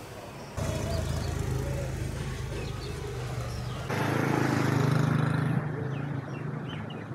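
Motor vehicle engine running steadily. The sound changes abruptly twice, and is louder for a second or two about four seconds in.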